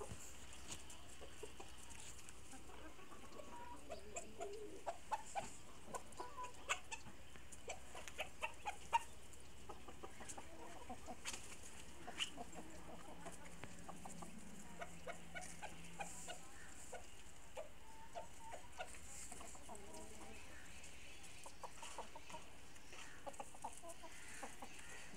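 Chickens clucking: short, scattered clucks, thickest for a few seconds near the start and sparser after.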